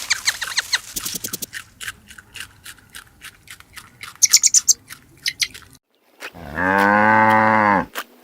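A cow moos once near the end, a single long, low call held for about a second and a half. Before it come several seconds of rapid irregular clicking and scraping.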